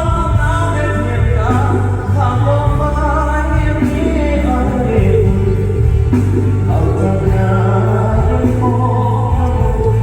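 A song performed live: a singer's voice over a full band with a strong, steady bass line.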